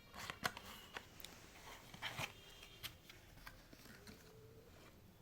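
Faint, irregular clicks and light rustling as an HDMI cable in its retail packaging is handled.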